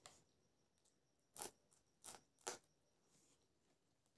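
Crisp, crunchy bites into a raw green chilli: three sharp snaps in quick succession through the middle, then one more at the end.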